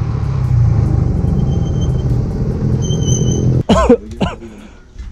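Motorcycle engine running steadily at cruising speed, with wind and road noise. It cuts off suddenly about three and a half seconds in, followed by a brief loud sound.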